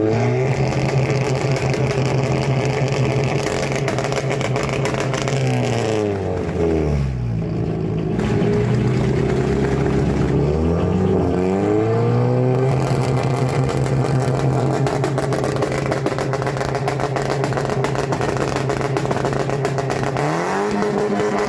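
Audi 80 2.0 engine revved hard through its exhaust and held at high revs for several seconds. About six seconds in the revs fall away; from about ten seconds they climb again and are held steady, rising once more near the end.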